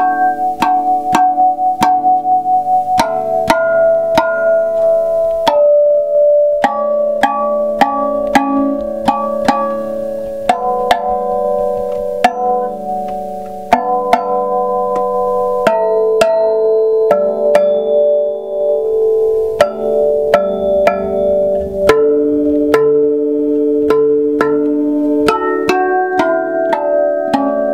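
Tongue drum with butterfly-shaped tongues played with the fingertips: a fast, continuous run of strikes, each note ringing on and overlapping the next as the melody moves between tongues.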